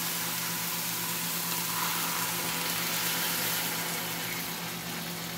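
Chicken fillets sizzling steadily in a nonstick frying pan, grilled without oil, with a little water poured in from a jug near the end to finish the browning. A low steady hum runs underneath.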